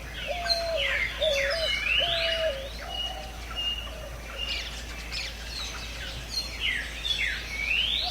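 Several birds calling together. A repeated low whistled note comes in the first half, and quick high chirps sliding down and up run throughout.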